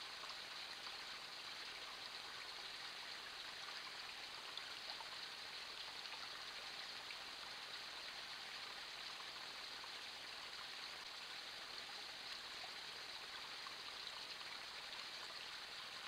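A small forest creek running: a faint, steady rushing of water.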